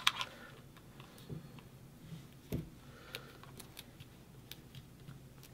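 Small clicks and taps of an adhesive tape runner and paper pieces being handled as punched holly pieces are glued and pressed onto a scrapbook page, with a soft thump about two and a half seconds in.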